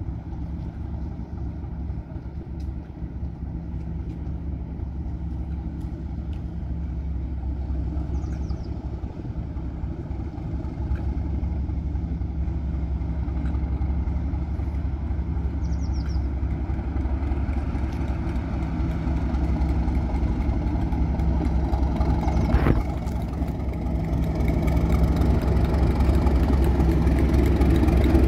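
Class 37 diesel locomotive D6948's English Electric V12 engine running at low power as the locomotive moves slowly past, growing steadily louder as it draws near. A single sharp knock comes about three-quarters of the way through.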